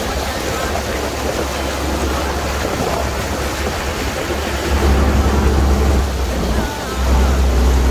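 Boat underway: a steady rush of water and wind with a low rumble that grows louder about five seconds in, dips briefly, then swells again near the end.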